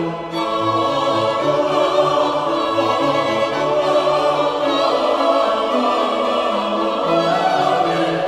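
Background classical music: an orchestra with choral singing holding long, slowly changing notes.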